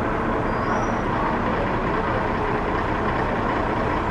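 Tour bus engine idling at the curb, a loud, steady roar close to its rear engine grille.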